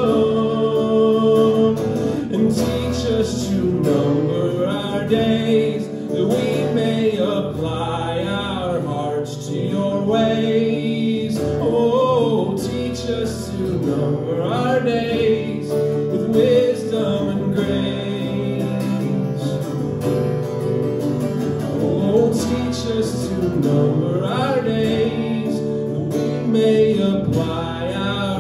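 A man singing a worship song while playing an acoustic guitar.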